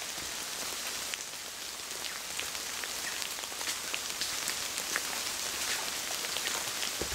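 Rain falling on forest foliage: a steady hiss with many small drops striking leaves, and a dull thud near the end.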